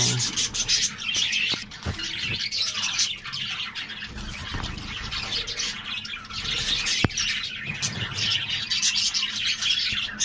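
A mixed flock of zebra finches and Java sparrows chirping and calling, many quick high chirps overlapping. One sharp click about seven seconds in.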